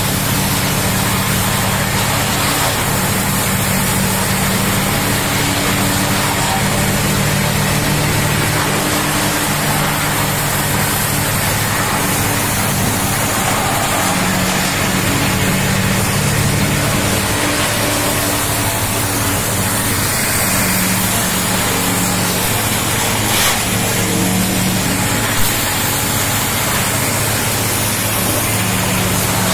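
Several wood crushers (sawdust-making machines) running together, crushing waste wood sticks into sawdust: a loud, steady mechanical din with a low hum under it. A brief sharp knock sounds a few seconds before the end.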